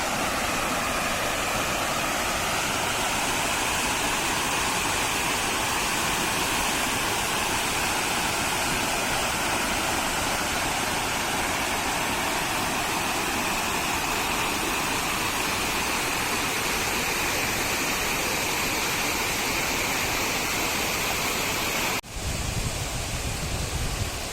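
Steady rushing roar of a waterfall's cascading water. It cuts out for a moment near the end and comes back with uneven low rumbling.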